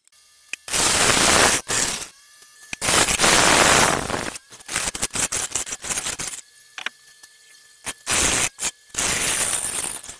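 Turning gouge cutting a spinning olive wood blank on a lathe, in repeated noisy passes of about a second each with short pauses between them, where only the lathe's faint steady hum is left.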